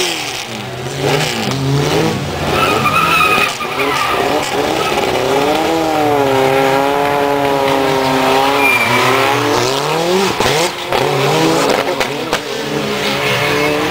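Racing car engines revving hard up and down, with the engine note repeatedly climbing and dropping, mixed with tyres skidding and squealing through a corner.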